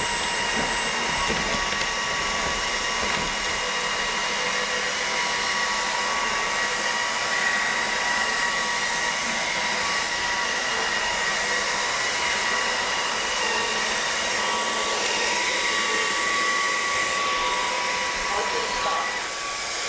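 Redroad W13 cordless wet-dry floor vacuum running steadily: a high motor whine with several steady tones over a rush of suction air.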